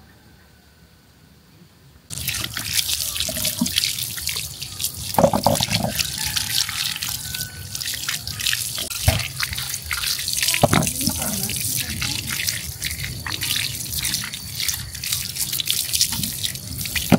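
Water running and splashing in a sink, starting suddenly about two seconds in, with a few knocks of things being handled in it.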